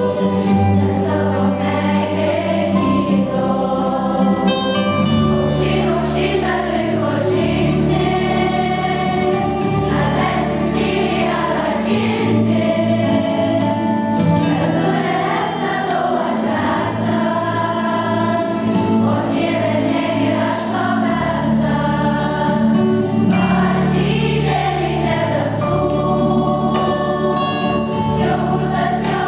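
Children's and youth choir, mostly girls' voices, singing a song in several parts over long held low accompaniment notes that change in steps.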